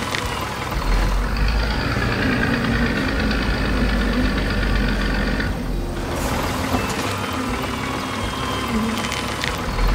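Tractor engine sound effect running steadily with a low rumble, its higher tones cutting out briefly about six seconds in.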